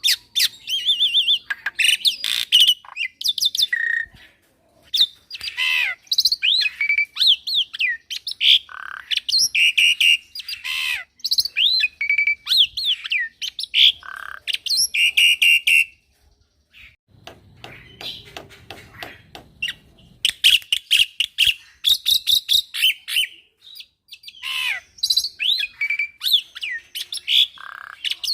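Young black-winged myna (jalak putih) in full continuous song: a fast, varied run of whistles sliding down in pitch, harsh squawks and rapid clicking notes, with mimicked phrases mixed in. It breaks off briefly past the middle, then takes up again.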